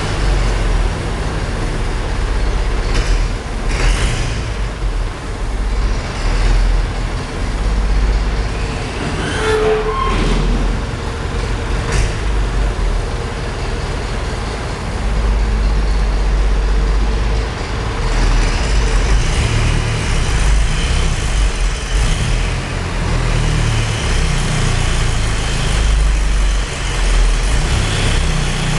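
Farm tractor engine running steadily with a deep rumble under load as its adapted rear forklift lifts a pallet of cement bags. A short rising squeal about ten seconds in.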